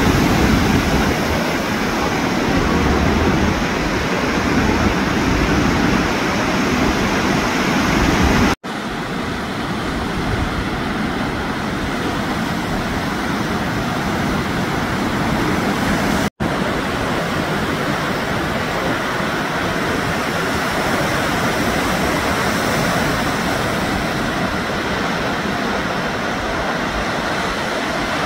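Ocean surf breaking, a steady rushing wash of noise that cuts out for an instant twice, about a third of the way in and again just past halfway.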